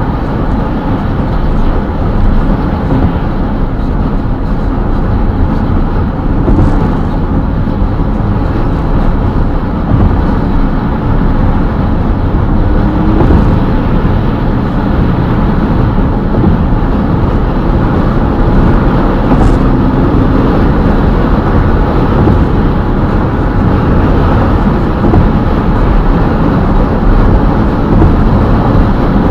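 A car driving at highway speed: a loud, steady rumble of tyres, wind and engine, heaviest in the deep range, heard from inside the car.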